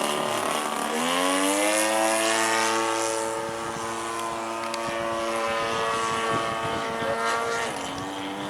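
Radio-controlled model airplane's motor and propeller running overhead, its pitch climbing as the throttle opens about a second in, holding steady, then dropping as it throttles back near the end.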